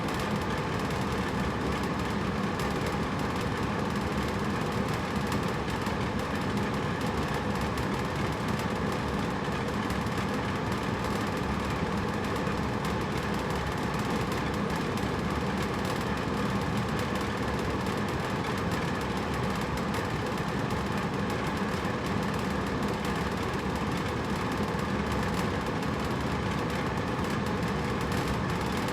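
Hotel room air conditioner running steadily: an even whooshing drone of fan and airflow with a low hum underneath.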